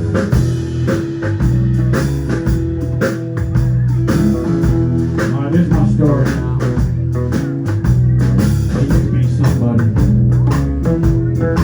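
Live band playing an instrumental break with guitar, bass and drums keeping a steady beat, in a bluesy style.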